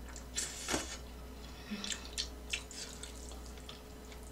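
A person slurping and chewing potato ramen noodles: a strong wet slurp about half a second in, then a string of short wet smacking and sucking sounds.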